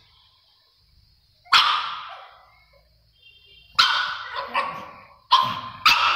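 Pug barking five times in short, sharp barks with an echo. It is calling to be carried down the stairs because it cannot manage going down them.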